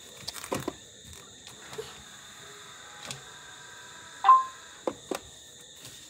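iRobot Roomba and Braava jet robots running, with a steady high-pitched whine under a few short knocks. About four seconds in comes one short electronic beep from a robot, the loudest sound.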